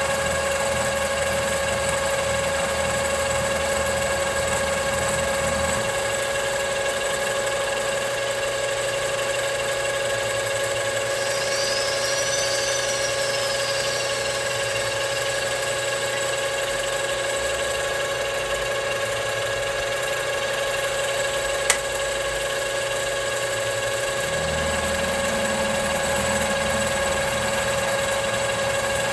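Machine tool running steadily while cutting metal, a constant hum with a low rumble that shifts about six seconds in and again near the end. A single sharp click comes a little past two-thirds through.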